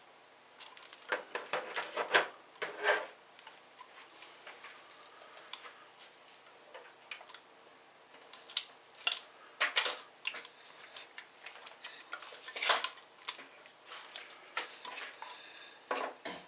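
Irregular clicks, taps and short scrapes of small plastic and metal laptop parts and tools being handled during disassembly, in a few bunches with quiet gaps between.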